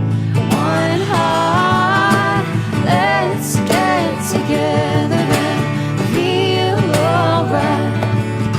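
Background music: an upbeat song with guitar and a wavering melody line over a steady bass.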